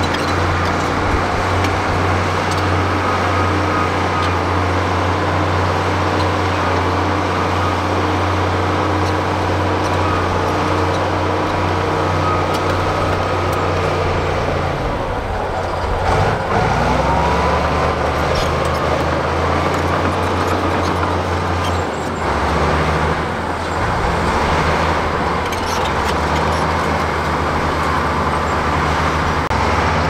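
Crawler bulldozer's diesel engine running steadily while the blade pushes rock and soil, its pitch dipping and shifting a couple of times around the middle.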